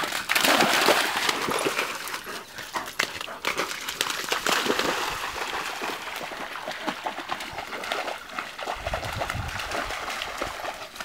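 Borzoi and Samoyed running and splashing through shallow water and mud, a busy mix of splashes and crackling steps, loudest in the first couple of seconds. A low rumble comes in near the end.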